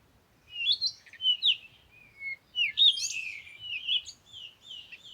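Songbirds singing: a quick run of varied chirps and whistled notes gliding up and down, starting about half a second in.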